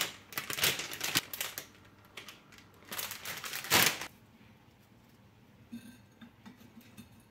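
Clear plastic flower sleeve and tissue paper crinkling as a bouquet is unwrapped by hand, in two loud bursts, one in the first second and a half and another about three to four seconds in. After that, only a few faint light clicks.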